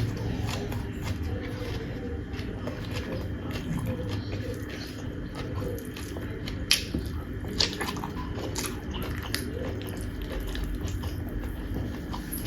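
A person chewing and biting food with wet mouth noises, broken by a few sharp crunches in the second half.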